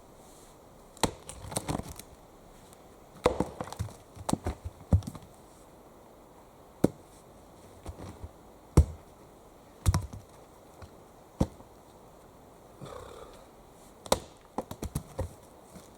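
Axe chopping wood: about a dozen sharp, irregularly spaced blows, some followed by a short rattle of smaller knocks.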